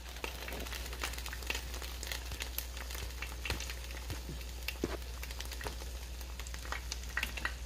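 Chicken legs sizzling in the pulled-out basket of a Philips Airfryer XXL, with scattered crackles and pops of hot fat, partway through cooking and not yet done. A steady low hum runs underneath.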